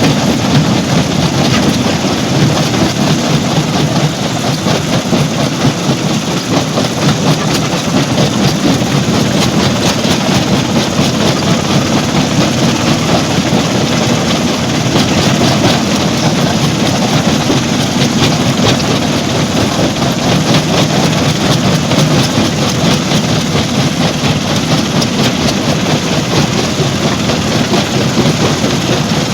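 Stone crusher machinery running under load: a loud, steady mechanical din with a dense, continuous clatter of rock being broken and moved.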